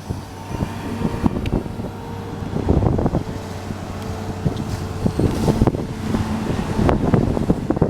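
An engine running steadily under heavy wind buffeting on the microphone, with irregular low thumps throughout.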